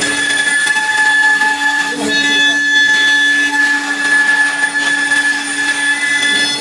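Blue Elephant ELE2130 CNC nesting router running while machining particleboard: a steady whine of several held tones over a hiss, with a brief change about two seconds in.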